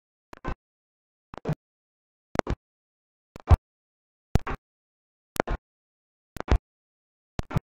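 Audio cutting in and out: brief snatches of sound about once a second, with dead silence between them, like a streamed feed dropping out.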